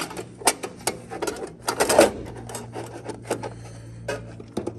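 Irregular clicks, taps and light knocks of an aluminium wing rib and its fuel fittings being handled and pushed into place in the wing root, with the loudest knock about two seconds in.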